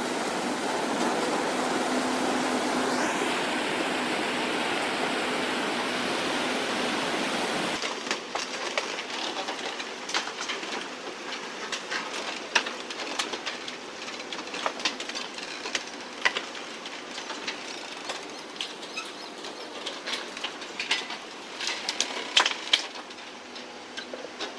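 Rushing, churning water from a cargo ship's propeller wash. After a cut about eight seconds in, a quieter stretch of scattered sharp cracks and snaps as the ship's bow pushes into moored motor boats and crushes them.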